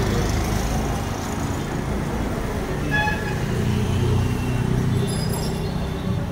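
Street traffic: a steady rumble of passing engines, with a short horn toot about three seconds in and a few brief high tones near the end.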